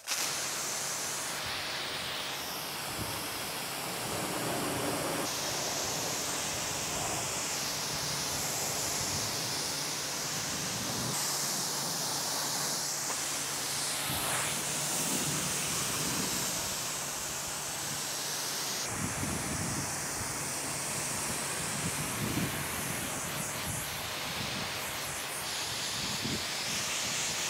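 Pressure washer jet spraying water into a Ford Mustang's engine bay, rinsing off snow foam: a loud, steady hiss that changes in tone every few seconds as the jet is moved over different parts.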